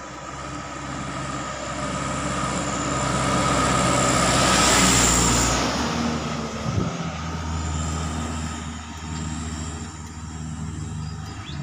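Diesel engine of a Mitsubishi Canter light truck driving past close by: it grows louder as the truck approaches, is loudest with a rush of engine and tyre noise as it goes by about halfway through, then fades as the truck pulls away.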